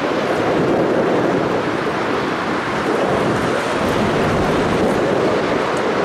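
Boeing 747's four jet engines heard from afar as a steady rushing noise while the jet rolls along the runway.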